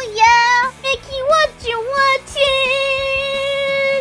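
A high voice singing a short tune in quick notes, then holding one long steady note to the end.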